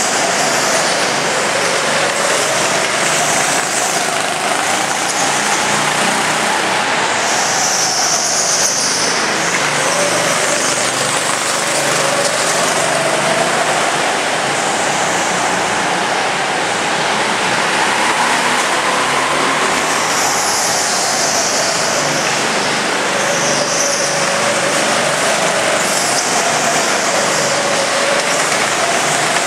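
Go-kart engine running as the kart laps, its pitch rising and falling over and over as it speeds up and slows for the corners.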